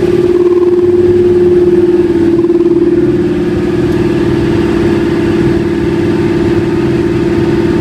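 English Electric 12SVT V12 diesel engine of a British Rail Class 31 locomotive ticking over at idle, heard from inside the locomotive, a loud steady drone with one strong held tone.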